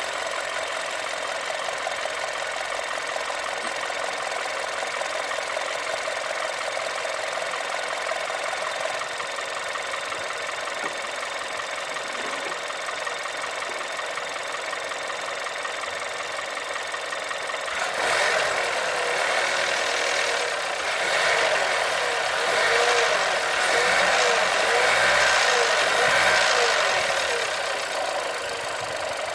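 Volkswagen-group 1.2 TSI turbo petrol engine idling, then revved up and let drop several times about two-thirds of the way in before settling back to idle. The owner hears a knock from it as the revs rise and fall.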